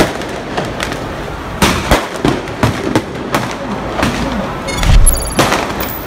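Fireworks and firecrackers going off again and again, sharp bangs and pops over a steady background din, with one loud deep boom about five seconds in.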